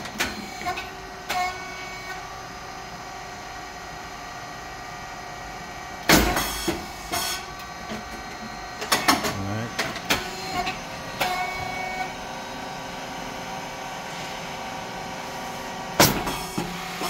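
Rice cake popping machine running its cycle: a steady hum from the hydraulic pump motor and cooling fan, with a loud pop as a batch of rice cakes puffs in the moulds about six seconds in and again near the end, about ten seconds apart, each followed by brief mechanical clatter.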